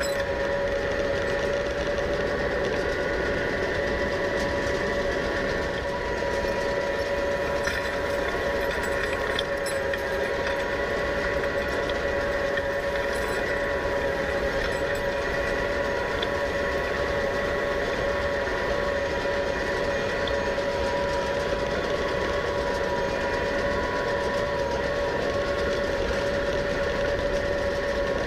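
New Holland tractor running steadily with a round baler in work, a constant whine of several steady tones over the engine and machinery noise.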